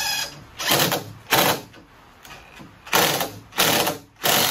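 Cordless impact driver driving a deck screw diagonally through a wood block into a floor joist, in six short bursts with pauses between.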